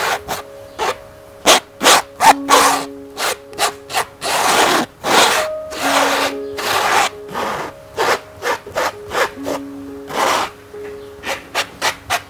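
Metal palette knife scraping and smearing thick acrylic paint across a stretched canvas, in a run of short strokes with a few longer smears around the middle.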